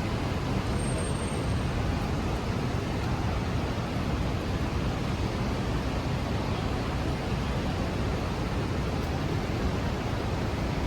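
Steady city traffic noise on a rainy street, heard as an even rushing hiss with a low rumble and no distinct events standing out.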